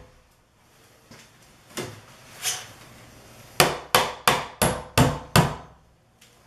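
Hammer driving finish nails into wooden door casing: two light taps, then a quick run of about six sharp strikes, roughly three a second.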